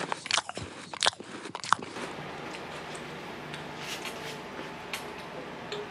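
Hard, crunchy chocolate cookie being bitten and chewed: a run of loud, sharp crunches in the first two seconds, then quieter scattered crunches as the chewing goes on.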